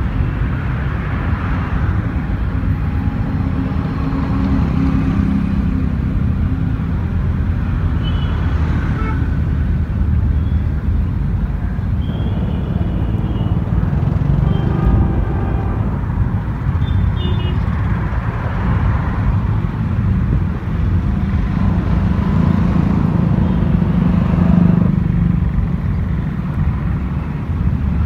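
City road traffic: cars and motorcycles passing at speed, a steady low rumble that swells each time a vehicle goes by, most plainly about a second in, around halfway and again near the end.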